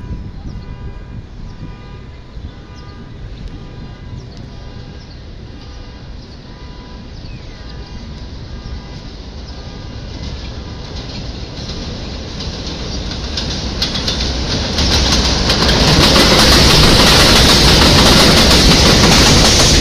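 New York City subway train on an elevated line approaching from a distance, growing steadily louder, then passing close by with loud wheel clatter and rumble from about three-quarters of the way in.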